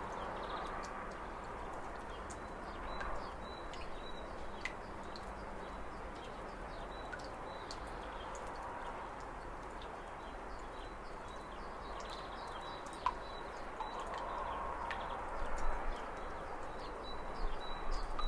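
Small birds calling in short, high, repeated chirps over a steady wash of lake water lapping, with scattered small clicks and a few louder splashes or bumps near the end.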